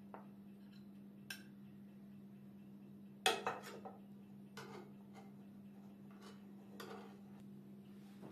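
Metal spoon clinking against a ceramic plate and a pan as stuffed peppers are served. A quick cluster of clinks about three seconds in is the loudest, with a few lighter taps before and after, over a steady low hum.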